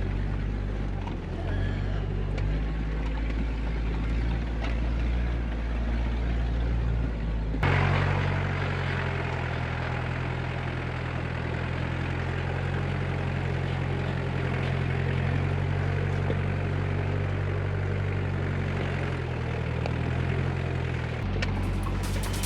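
4x4 vehicle engine running steadily as it drives along, with road and tyre noise. The sound changes abruptly about eight seconds in, and music with a fast beat comes in near the end.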